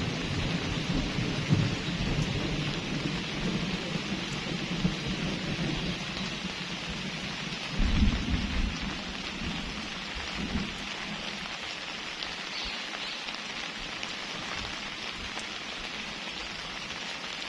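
Steady rain, with low rumbles of thunder that die away over the first couple of seconds and swell again briefly about eight seconds in and once more around ten seconds in.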